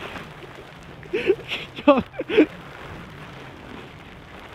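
Three short honks imitating Canada geese about a second in, the middle one breaking sharply downward in pitch, over a steady hiss.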